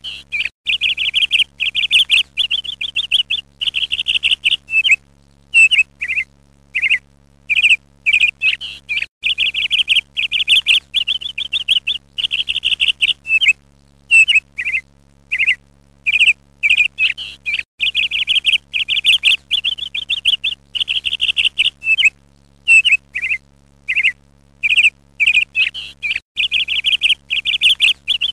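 Ducklings peeping: runs of rapid, high, shrill peeps in short bursts with brief gaps between them, over a faint steady low hum.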